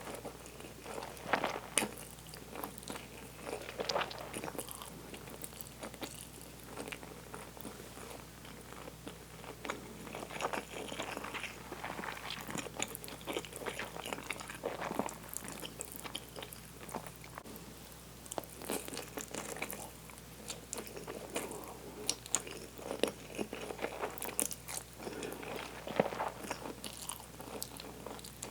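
A person chewing food close to the microphone: irregular wet smacks and small crunching clicks, coming in uneven clusters.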